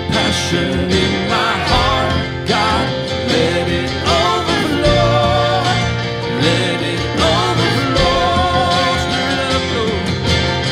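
Live worship band playing a song: acoustic and electric guitars, bass guitar and drum kit, with a wavering melody line on top.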